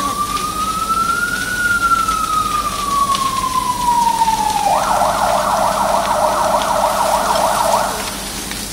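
Fire engine's electronic siren: a slow wail that rises and then falls, switching about five seconds in to a fast yelp that stops abruptly about three seconds later, over a steady hiss.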